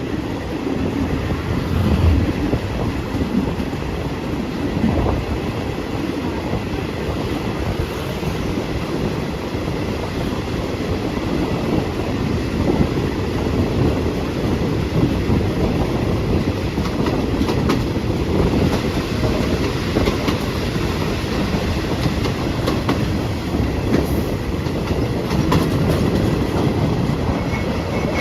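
Diesel local passenger train pulling out of a station and running past, a steady rail rumble with scattered wheel clacks over the rail joints.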